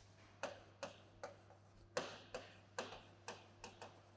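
Marker pen writing on a whiteboard: a faint string of short, irregular taps and strokes, about two to three a second.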